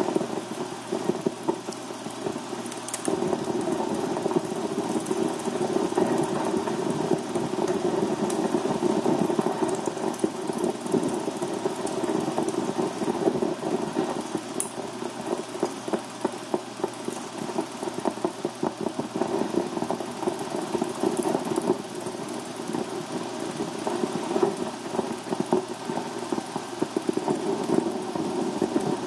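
Optical soundtrack of hand-made 16mm film reading taped and inked materials as sound: a continuous, grainy buzz full of small crackles and pops.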